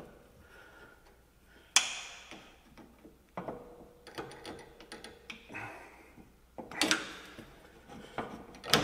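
Hand tool clanking and scraping against a rusty rear brake caliper's parking brake cable bracket and lever as the cable is pried loose. There is a sharp metal clank about two seconds in, another near the middle, and a couple more near the end, with lighter rattles and scrapes between them.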